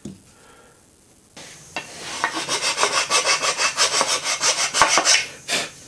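Hand tool rasping back and forth in a slot cut through a wooden whirligig body, in quick even strokes of about six a second. It starts over a second in and stops shortly before the end.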